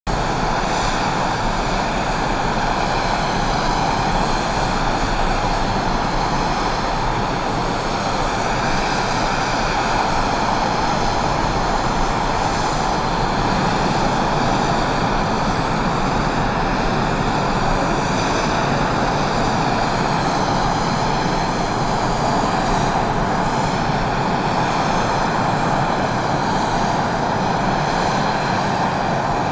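Aircraft engine noise running steadily throughout, with a high whine over it.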